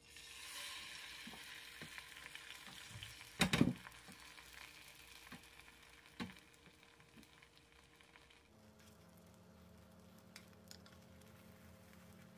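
Beaten egg poured into a hot nonstick frying pan, sizzling at once, with the hiss fading away over several seconds. A loud clunk comes about three and a half seconds in and a smaller click near six seconds. After about eight seconds the sizzle is gone, leaving only a faint steady hum.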